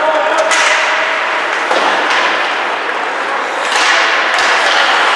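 Ice hockey play: skate blades scraping the ice in hissing swishes, with a few sharp knocks of sticks and puck.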